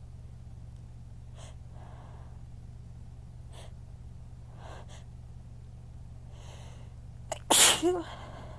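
A woman's sneeze: a few faint, catching breaths, then one loud, strong sneeze near the end with a short voiced tail. It is one of a fit of strong sneezes that burn her throat.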